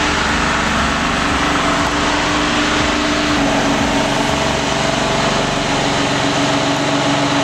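Two-stroke Detroit Diesel engine of an old logging truck running loud and steady, its pitch dropping slightly about three and a half seconds in.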